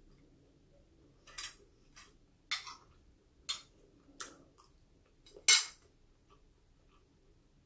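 Eating at a ceramic plate: about six short scrapes and clinks as a spoon and fingers work rice and food on the plate, the loudest about two-thirds of the way through.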